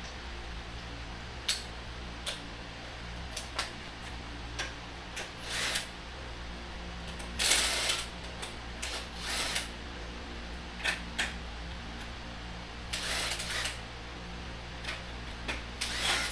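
Hand tools and metal parts being worked on a Mazda Miata engine during its teardown: scattered clicks and knocks and several short rasping bursts, over a steady low hum.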